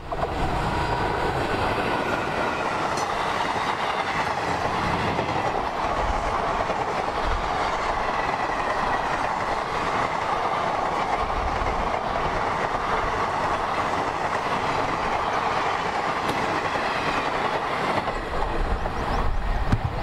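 Indian Railways electric locomotive and its passenger coaches passing at speed: a steady rush and rumble of steel wheels on rail. Near the end the sound turns choppier as the last coach goes by, with wind buffeting the microphone.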